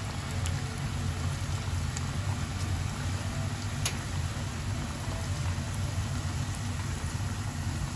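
Battered chicken pieces shallow-frying in hot oil in a pan: a steady sizzle with scattered crackles and pops, one sharper pop about four seconds in, over a steady low hum.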